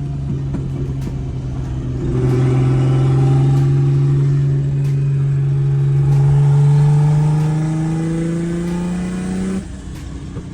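Toyota 1JZ inline-six engine of a drift car pulling under load. Its note gets louder about two seconds in, rises slowly in pitch for about seven seconds, then drops abruptly near the end.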